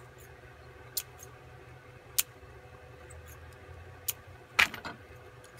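Scissors snipping the edges of thin aluminium beer-can sheet: a few sharp snips spaced irregularly, the loudest near the end.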